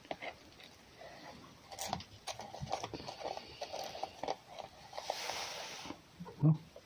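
A red fox moving and feeding at close range, with irregular crunching and clicking. A short hiss follows, then a single loud thump near the end.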